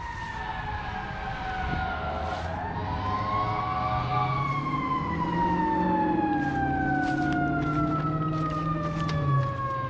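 Fire truck siren wailing. Its pitch falls, climbs again about two seconds in, then sinks slowly for the rest.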